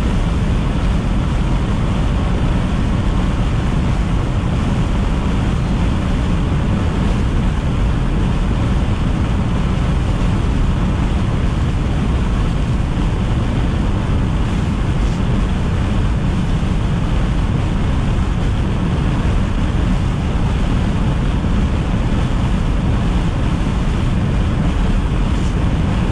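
Steady road and wind noise of a car driving at speed, heard from inside the cabin: a loud, even rush, deepest in the low range.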